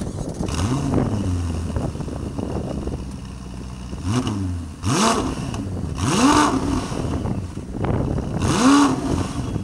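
Ferrari 488 Pista's 3.9-litre twin-turbo V8 idling and revved about five times through its exhaust, each rev rising and falling back, the last two the loudest. Wind buffets the microphone throughout.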